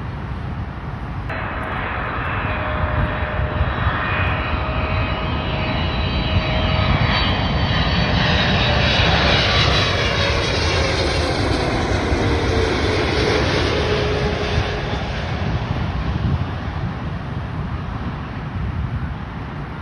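Boeing 777-300 airliner's twin jet engines as it comes in to land and passes by. The jet roar swells to a peak midway, and its whining tones fall in pitch as it goes past, then it fades.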